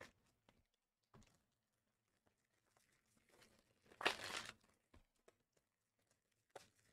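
Trading card pack wrapper being torn open, one short crinkly rip about four seconds in, with a few faint handling clicks around it.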